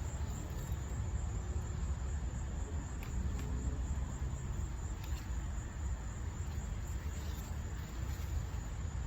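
Steady high insect trill over a low rumble, with a few faint ticks about three and five seconds in.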